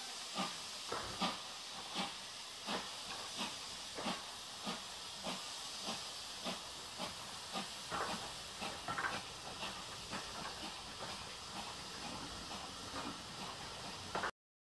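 Steam locomotive working away from a station: regular exhaust chuffs over a steady hiss, the beats coming gradually quicker as the train picks up speed. The sound stops abruptly near the end.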